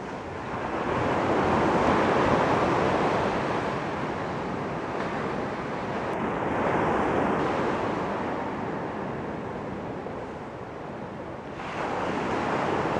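Surf breaking on a nearby beach: a steady rushing that swells and fades in slow waves, building about two seconds in, again around seven seconds, and once more near the end.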